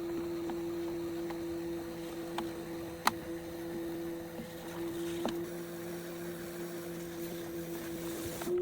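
Electric potter's wheel motor humming at a steady pitch, with a few sharp clicks about three and five seconds in.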